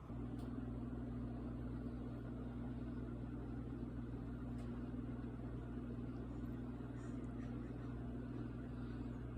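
A steady machine hum: a low drone with a rush of noise over it, coming in suddenly and holding at one level.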